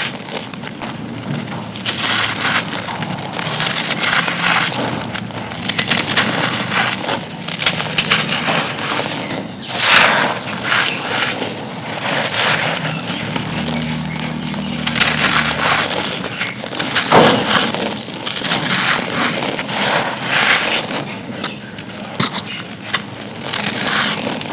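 Dry black-dyed concrete slab pieces crunching and crumbling continuously, a dense crackle of breaking fragments with louder crunches about ten seconds in and again a few seconds later.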